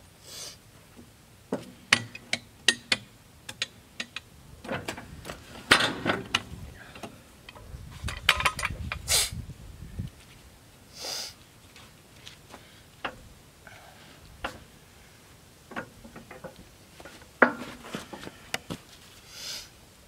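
Scattered knocks, clicks and clatter of sawn wooden boards being handled on a sawmill bed, with a few short hissing sweeps. The sharpest knocks come about 2, 6 and 17 seconds in.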